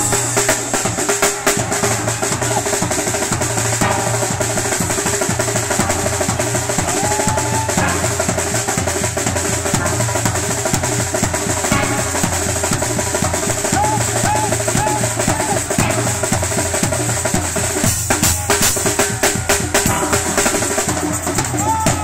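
Steelband music: a drum kit played up close drives a fast, busy beat of snare rolls, bass drum and cymbals over the steel pans of the orchestra.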